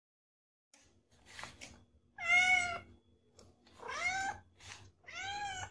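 Young cat meowing three times, each call rising then falling in pitch, the first the loudest.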